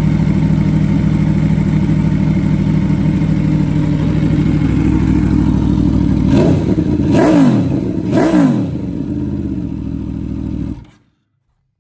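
A 2015 Aprilia Tuono V4 1100 Factory's V4 engine idles through an aftermarket Arrow GP exhaust can. About six seconds in, it is blipped three times, the revs rising and falling quickly about a second apart. It then settles back to idle and stops abruptly shortly before the end.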